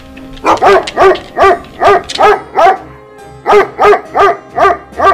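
A dog barking rapidly, about three barks a second, in two runs with a short break about three seconds in.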